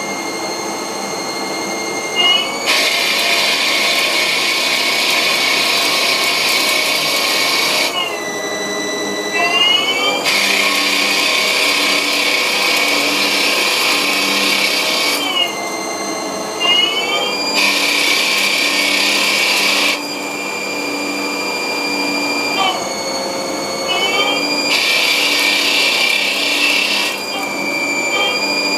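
Haas TL1 CNC toolroom lathe running a turning program: the spindle drive whines steadily, its pitch gliding up or down four times as the speed changes. Between the glides a hissing cutting noise comes in for stretches of a few seconds as the tool takes passes and throws off chips.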